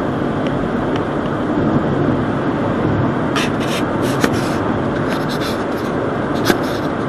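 Steady road and engine noise inside a moving car, as picked up by a dashcam's built-in microphone, with a few light ticks and knocks a little past halfway through.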